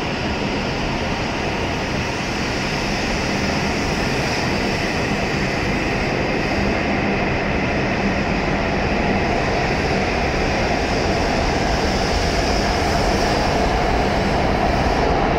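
W7 series Shinkansen electric train pulling out of the station and gathering speed, a steady rushing run of wheels and motors that grows gradually louder.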